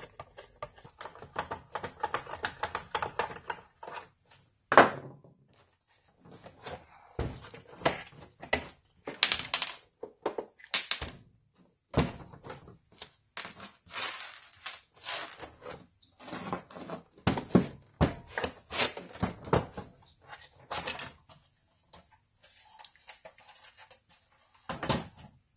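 Screws being backed out of a Craftsman portable air station's plastic housing and the case halves handled and pulled apart: irregular clicks, scrapes and plastic knocks, with one sharp knock about five seconds in.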